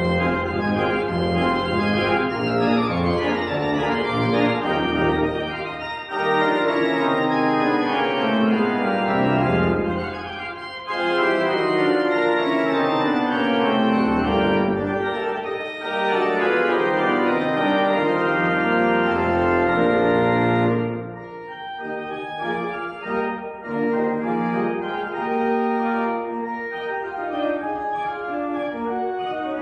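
Pipe organ playing a fast, full passage of sweeping runs over sustained chords. About twenty seconds in it drops to a softer, thinner registration.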